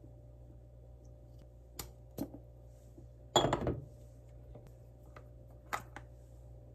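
Light knocks of things being handled and set down, with one short clatter of dishes or utensils about three and a half seconds in, over a steady low hum.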